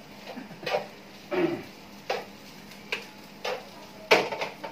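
A spatula knocking and scraping against a frying pan while stirring fried rice: about six separate strokes, roughly one every 0.7 s, the loudest a little after four seconds in.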